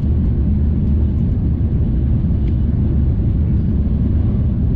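Steady low rumble of a Shinkansen bullet train running, heard from inside the passenger car.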